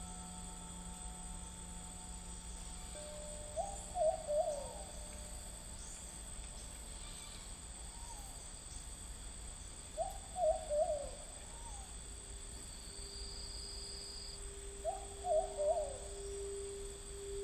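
A night bird in the rainforest calling three times, each call a short run of quick, wavering hoot-like notes, about six seconds apart, over a steady high insect trill. A crystal singing bowl tone comes in about two-thirds of the way through.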